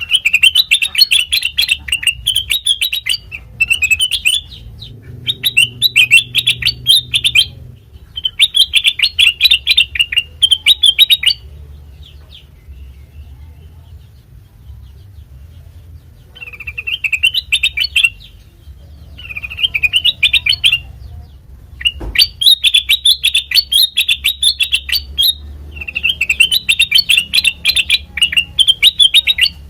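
Kutilang mas (a bulbul) singing in bouts of quick, chattering high notes, about seven phrases with short pauses and one longer pause near the middle. A faint low hum runs beneath, and there is a single click about two-thirds of the way in.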